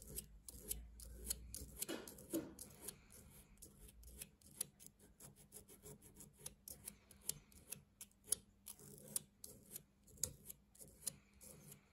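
A hand file worked in short strokes across a small steel filing guide clamped in a bench vise: faint, quick scraping strokes, a few each second.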